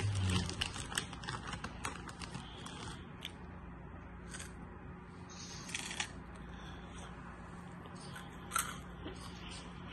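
Close-up eating sounds: crisp crackling crunches and mouth clicks, thick for about the first second and then scattered, with a few sharper crunches later on.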